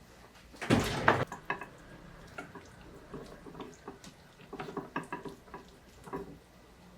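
Kitchen work: a short rush of water about a second in, then scattered light clinks and knocks of kitchenware.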